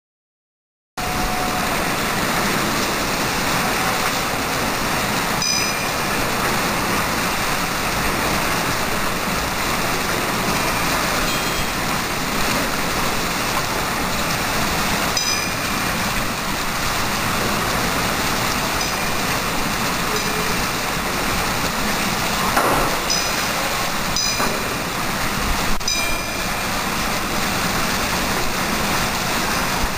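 Steady rush of water from a kinetic water clock's jets splashing into its basin, starting about a second in, with a few faint clicks from the mechanism.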